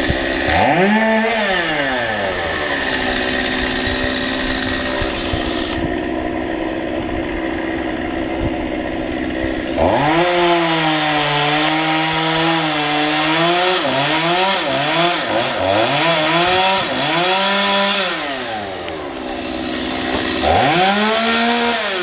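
Chainsaw revved up and back down to idle, then idling for several seconds. It is then held at high revs while cutting through a tree limb, its pitch dipping and recovering again and again under load, and is revved once more near the end.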